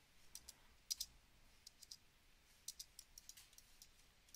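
Faint clicks of a computer mouse, scattered and several in quick pairs, over a low hiss.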